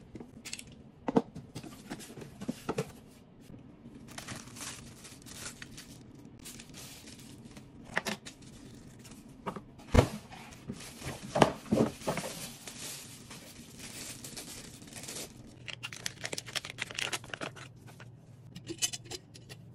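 Packaging being handled during an unboxing: plastic wrap crinkling and cardboard and molded pulp scraping, broken by scattered knocks and taps, the sharpest about halfway through.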